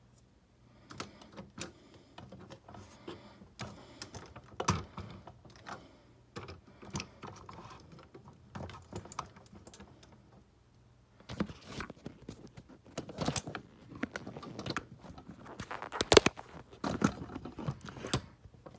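Irregular clicks, taps and rustling from cards and cardboard packaging being handled, with a short quiet pause about halfway through.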